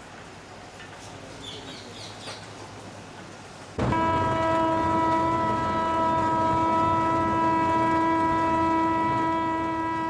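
A train horn sounding one long steady blast, starting suddenly about four seconds in and lasting about six seconds; before it there is only faint background.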